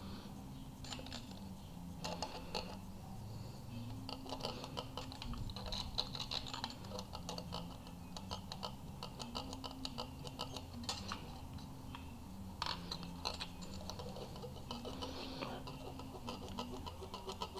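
Small irregular metallic clicks and scrapes of hand tools on a Honda B18C1 engine's valve-lash adjuster: the rocker arm's adjusting screw and locknut being turned and set, with a feeler gauge in place under the rocker.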